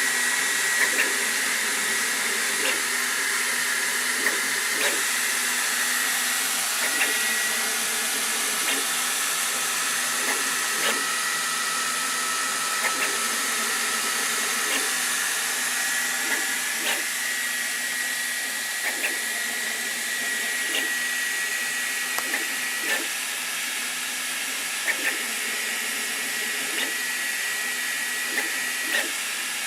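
Sovol SV08 3D printer running a print: a steady fan rush with high whining tones that shift in pitch now and then, and light clicks at irregular intervals.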